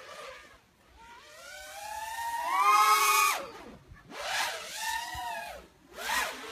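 Racing quadcopter's brushless motors and propellers whining as the throttle moves: the pitch climbs over about two seconds and cuts off, then swells and falls twice more.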